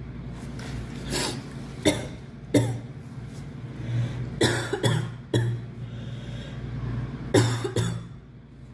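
A girl sneezing repeatedly: a string of short, sharp sneezes, several coming in quick pairs.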